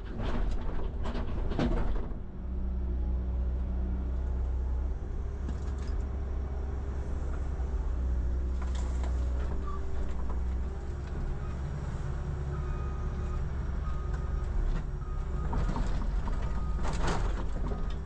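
Cat 312CL excavator's diesel engine running steadily under load, with a thin hydraulic whine for a few seconds in the second half. Over it, scraping knocks of chunks of concrete slab being pried up and broken loose come several times, most around the start and again near the end.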